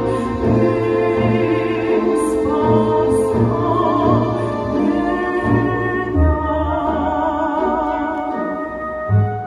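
A woman's operatic voice singing long held notes with wide vibrato over a recorded orchestral accompaniment.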